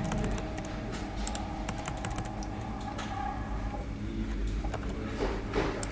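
Keys tapped on a keyboard, a scattering of separate keystrokes, as the marking text is typed into the dot peen marking machine's controller. A steady low hum runs underneath.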